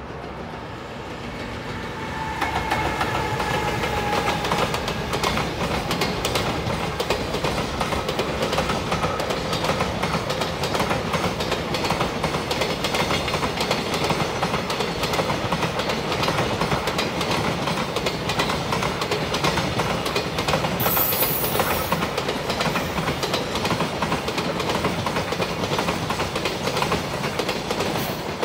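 JR Freight EF210 'Momotaro' electric locomotive passing with a long container freight train. The sound grows louder over the first few seconds with a whine from the locomotive, then the container wagons go by in a steady, loud run of wheels clattering rhythmically over the rail joints. There is a brief high hiss about three-quarters of the way through.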